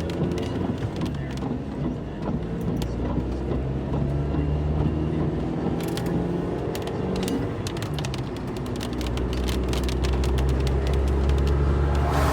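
Vehicle engine and road noise while driving, the engine pitch shifting now and then. From about halfway through, a scatter of sharp ticks.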